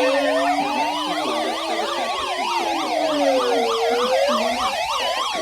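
Several electronic emergency sirens sounding at once: a slow wail rising and falling about every four seconds, layered over fast yelping warbles at different pitches.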